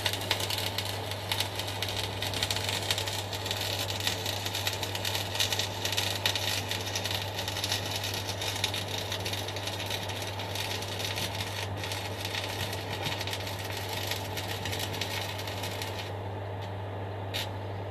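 Stick (MMA) arc welding: the electrode's arc crackling steadily, then stopping about two seconds before the end, over a steady low hum.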